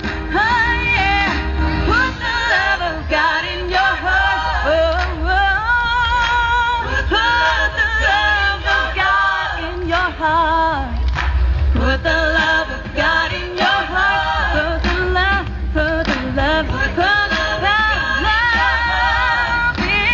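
A recorded song: singing with gliding, wavering pitch over instrumental backing with a steady bass.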